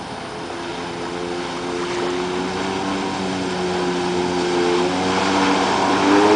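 Jet ski engine running, with a steady drone whose pitch wavers slightly. It grows steadily louder as the craft comes closer.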